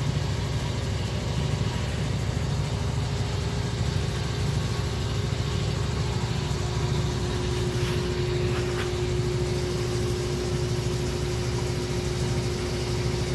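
A 1993 Chevy Silverado's 5.7-litre 350 small-block V8 idling steadily, heard from beneath the truck. A steady, even tone joins the idle about three seconds in.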